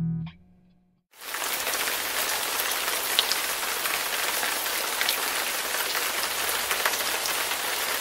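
A piece of guitar music ends with a last note, then after about a second of silence a steady, even hiss like rain begins, with scattered small ticks in it.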